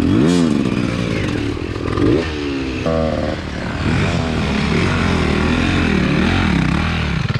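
Enduro dirt bike engines revving up and down in pitch, blipped and held under load on a steep dirt trail, with an occasional scrape or clatter.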